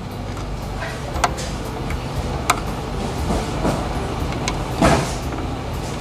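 Wiring-harness plug being worked onto the back of a car stereo head unit: a few sharp plastic clicks and a rustle of wires a little before the end, over a steady low hum.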